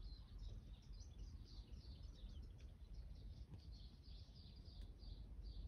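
Faint birds chirping, a quick irregular series of short high chirps, over a low background rumble.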